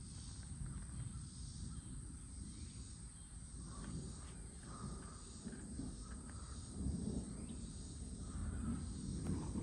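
Gusty wind rumbling on the microphone, with a few faint short calls, likely birds, in the background.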